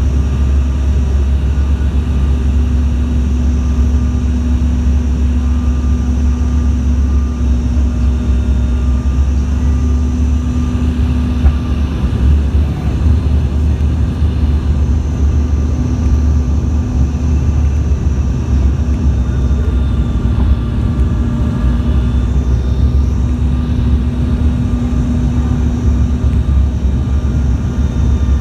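Airliner cabin noise heard from a passenger seat: the engines and rushing air make a loud, steady low rumble with a steady hum on top, unchanging throughout.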